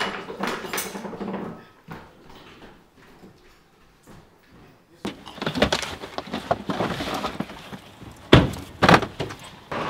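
Scattered knocks and bumps of quick movement, then after a few quieter seconds a busier stretch ending in two loud, sharp thumps about half a second apart.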